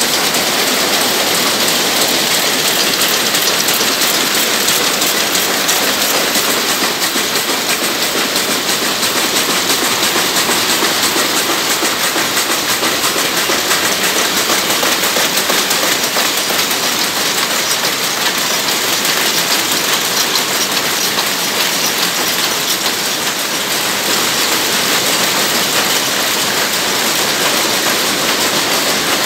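Rapier looms running: a loud, steady, rapid mechanical clatter that does not let up.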